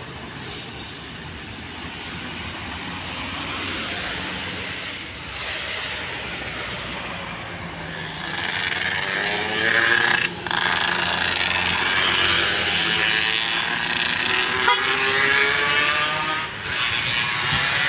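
Boeing 787 Dreamliner's twin turbofan jet engines at takeoff thrust during the takeoff roll, a steady roar that grows louder about halfway through, with a wavering whoosh and two brief dips.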